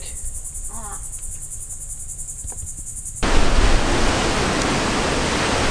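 A high-pitched insect chorus shrilling with a rapid, even pulse. About three seconds in it cuts off abruptly to loud, rushing storm wind buffeting the microphone.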